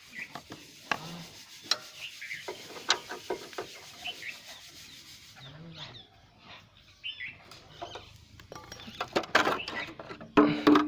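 Metal hand tools and parts clinking, knocking and scraping as the rear wheel of a Hero Honda Passion motorcycle is taken apart, a string of irregular clicks and knocks that grows busiest and loudest near the end.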